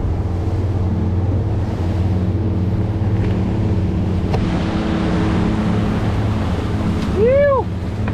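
Twin outboard motors running steadily at trolling speed, with the wake rushing and wind on the microphone. Near the end, one short loud shout that rises and falls in pitch.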